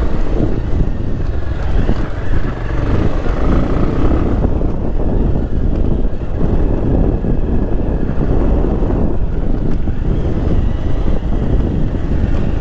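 Motorcycle engine running steadily as the bike rides along a rough dirt track, with wind noise on the microphone.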